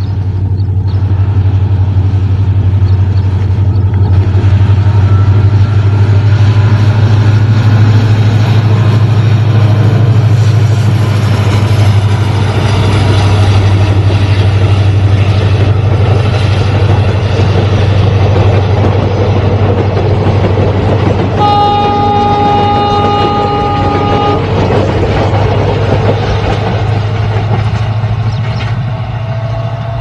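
Indian Railways diesel locomotive hauling passenger coaches past: a steady low engine throb over the rumble of wheels on the track. One horn blast of about three seconds sounds roughly two-thirds of the way through.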